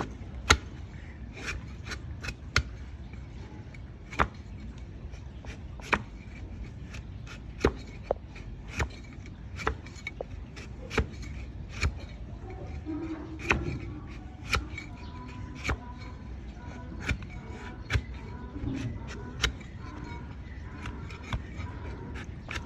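A blade cutting into a donkey's hoof horn during trimming: crisp, sharp cuts about once a second, at an uneven pace.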